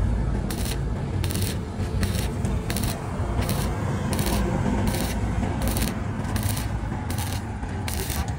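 Stick (arc) welding with a coated electrode on galvanized steel square tubing: the arc crackles and sizzles steadily, surging a little brighter about every 0.7 seconds.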